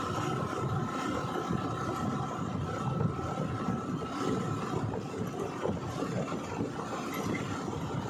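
Steady running noise of a moving vehicle on the road, an uneven low rumble with a faint steady whine above it.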